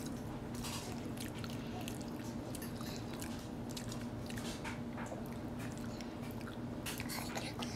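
A baby chewing and gumming soft shrimp fritter: irregular small wet mouth clicks and smacks, over a steady low hum.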